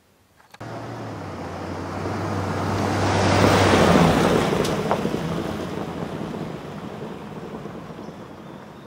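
A truck driving past on a gravel road, its engine hum and tyres crunching over the gravel growing louder as it passes close, then fading slowly as it drives away.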